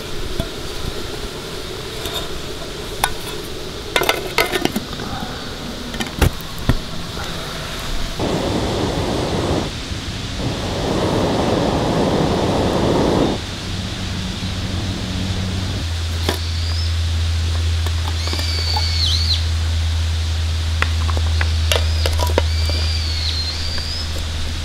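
Light clinks of a metal spoon against an aluminium mess tin, then two stretches of hiss. In the second half there is a steady low rumble with a few short, high bird chirps over it.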